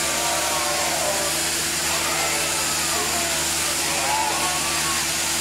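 Steady machine hum and hiss at an even level, with faint wavering voices or bleats over it now and then.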